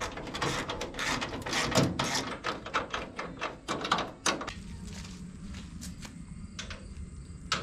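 Hand socket ratchet clicking in quick, uneven runs as a bolt is driven in, for about the first four and a half seconds. After that it is quieter, with a couple of single knocks near the end.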